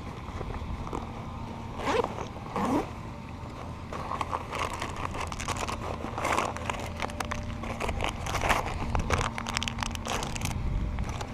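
Fishing reel being cranked: a dense run of fast, fine clicking and ratcheting from about four seconds in, over a low rumble. Two short falling squeaks come about two seconds in.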